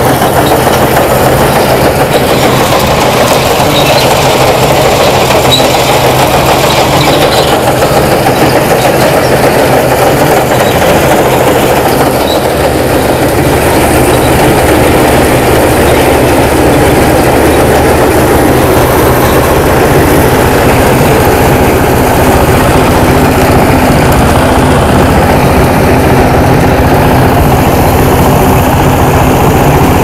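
Mini combine harvester harvesting wheat: its engine and its cutting and threshing machinery run steadily under load.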